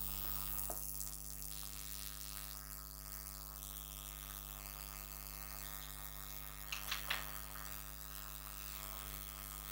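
Steady electrical mains hum with faint room noise, and a couple of faint short clicks about seven seconds in.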